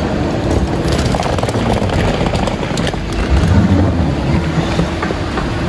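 Steady rumble and rattle of suitcase wheels rolling onto a moving walkway, with the walkway's drive running. There are a few sharp clicks in the first half and a louder low rumble about three and a half seconds in.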